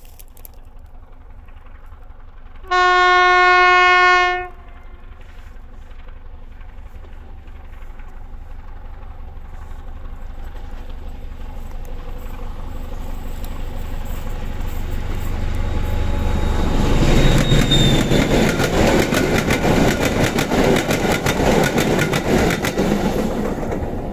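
SM42 diesel shunting locomotive sounding one horn blast of about a second and a half, then its diesel engine growing steadily louder as it approaches and passes close by. For the last several seconds the wheels clatter rapidly over the rails.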